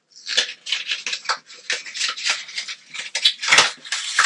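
Memory card's plastic blister pack being crinkled and torn open by hand: a quick, irregular run of crackles and scrapes starting just after the beginning.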